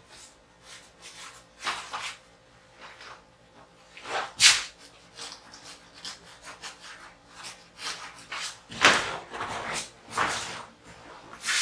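Paintbrush with acrylic paint scrubbing across a large canvas: an irregular run of short swishing strokes, a few of them much louder than the rest.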